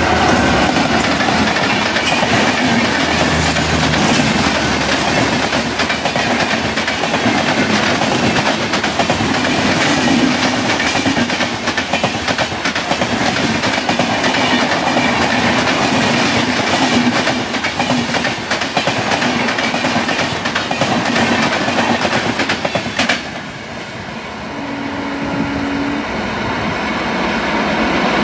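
Coaches of a passenger train (the East Coast Express) passing close at speed, wheels clattering rapidly over the rail joints. The rush cuts off sharply about 23 seconds in as the train clears, leaving a quieter fading rumble with a brief steady tone.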